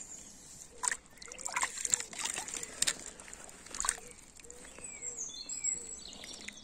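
Water splashing on a river: four or five sharp splashes in the first four seconds, with birds singing and high chirping calls toward the end.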